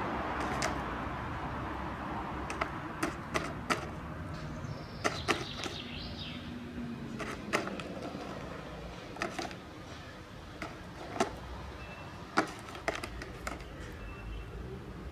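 Rook pecking and tugging at a plastic takeout container: a scatter of sharp, irregular clicks and knocks of beak on plastic.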